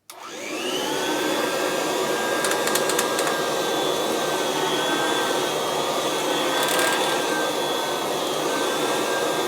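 Kirby Classic 3 upright vacuum switched on with a buffer brush roll fitted: the motor spins up over about a second, then runs steadily with a high fan whine, with a few faint ticks a few seconds in. Its owner judges the sound decent and the machine usable.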